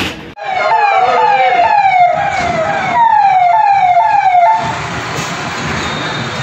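Emergency vehicle siren sounding a quick repeating falling wail, two to three sweeps a second, that cuts off a little over four seconds in. Steady traffic and engine noise carries on after it.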